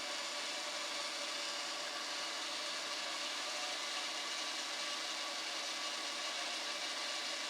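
Honda 3.5L V6 idling steadily, heard as an even rushing noise with no clear beat. The engine is intermittently misfiring, and misses are starting to show on the scope.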